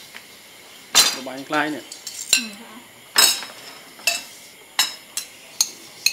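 Metal spoons and stainless-steel chopsticks clinking against ceramic plates and bowls as food is served and eaten, about eight sharp, ringing clinks. A brief voice sounds about a second in.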